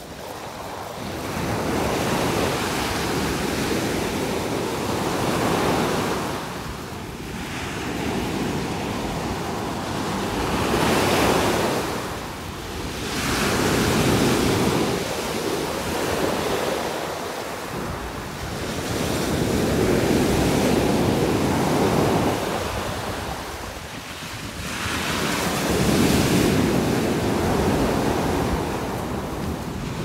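Black Sea surf breaking on a sandy beach: a steady wash of waves that swells and falls back every few seconds.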